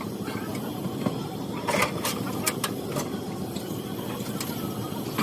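Steady low engine rumble with a handful of sharp metallic clicks and knocks, several close together about two seconds in and a few single ones later, like hand tools on car parts during a repair.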